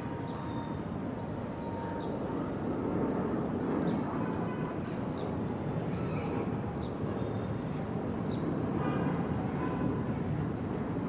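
Steady rushing airflow and engine noise of a Boeing 777 in its initial climb with the landing gear still down, with a faint short high chirp repeating about every one and a half seconds.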